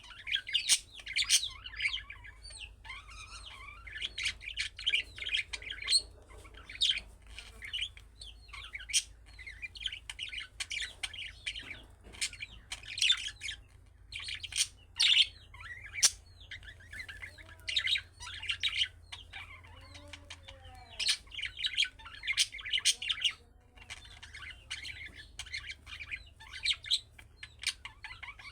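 Budgerigars chattering: bursts of quick chirps and warbles, broken by short pauses, over a faint steady low hum.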